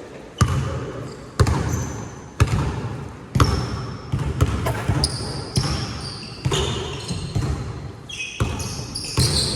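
Basketball dribbled on a gym court, bouncing about once a second, with short high sneaker squeaks on the floor in the second half.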